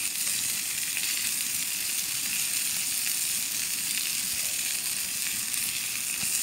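Lamb cutlets sizzling on a grill grate over a wood campfire: a steady hiss with a few faint ticks.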